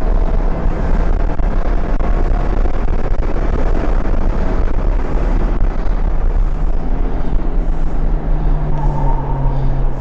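Mini Cooper S engine and road noise from inside the cabin at racing speed, loud and continuous, the engine note settling to a steady pitch over the last few seconds. The driver's heavy breathing comes through in short, regular puffs about once a second.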